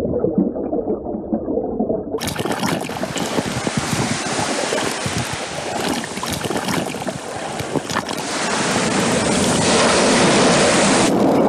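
Sea water splashing and washing: a muffled, low rush of water for about two seconds, then suddenly full and clear splashing and waves, growing louder about eight seconds in.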